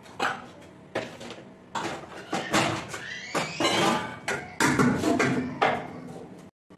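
Dishes and steel utensils clattering as they are set down and shifted on a kitchen shelf: a string of sharp knocks and scrapes, some ringing briefly.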